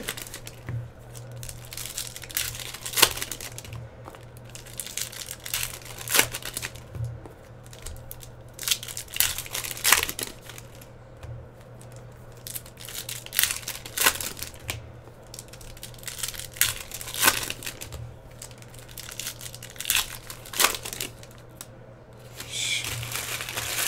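Foil wrappers of trading card packs crinkling and tearing as they are ripped open by hand, in irregular rustles and short rips. A low steady hum runs underneath.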